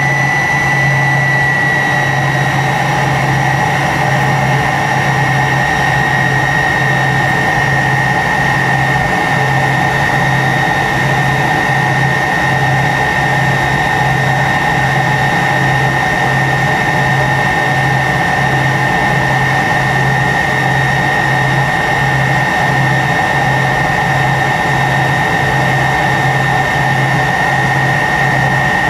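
Tupolev Tu-134's rear-mounted Soloviev D-30 turbofans running at low power on the ground, heard from inside the cabin as a steady jet roar with a high turbine whine that dips slightly in pitch in the first couple of seconds. Under it, a low hum pulses on and off at an even rhythm.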